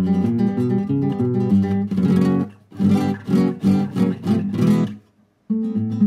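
Background music on acoustic guitar: picked notes, then a run of strummed chords from about two seconds in, a brief silent break about five seconds in, and the picked notes starting again.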